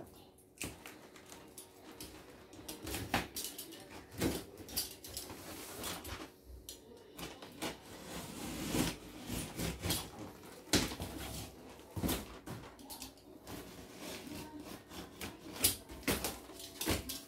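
Irregular clicks, knocks and light clatter of objects being handled and set down, with some rustling in between.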